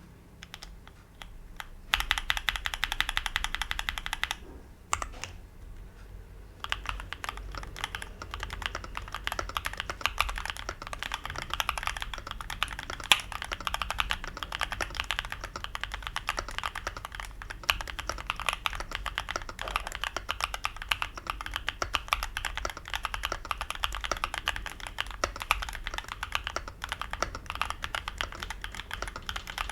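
Mechanical keyboard with lubed Jwick Ginger Milk linear switches on a steel plate, in an aluminium Tofu60-style case with cherry-profile keycaps, being typed on. A fast run of keystrokes begins about two seconds in and breaks off; after a pause with a lone click, steady continuous typing takes up from about six and a half seconds on.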